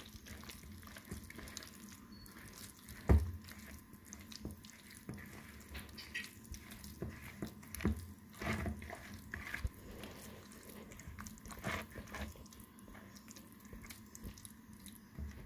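A hand mixing and squeezing a wet batter of boiled noodles, gram flour and mashed potato in a plastic bowl, making irregular wet squelches and clicks. There is one louder knock about three seconds in.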